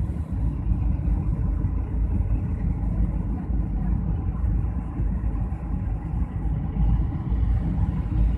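Airliner cabin noise on the approach to landing: a steady low rumble of engines and rushing airflow.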